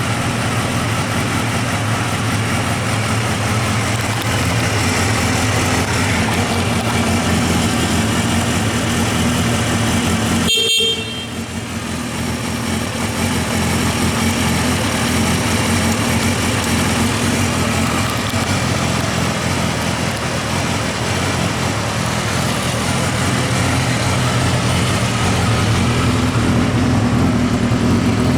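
Honda CBR250R Hurricane's 250 cc inline-four engine running steadily at idle. About eleven seconds in there is a brief break with a short beep.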